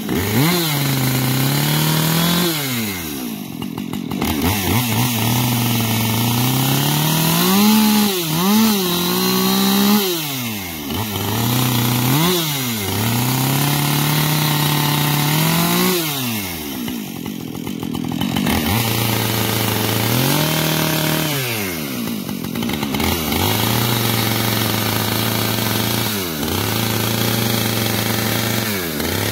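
Husqvarna 545 two-stroke chainsaw revved up again and again in short bursts while carving into a pumpkin, dropping back to a steady idle between some of the bursts.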